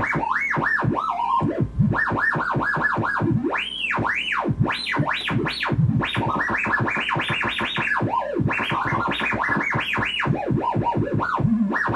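Homemade gyro-controlled sound generator, with two voltage-controlled oscillators mixed through an XOR gate, playing through an amplified speaker: a trippy electronic warble that swoops up and down in pitch several times a second as the gyroscope is tilted.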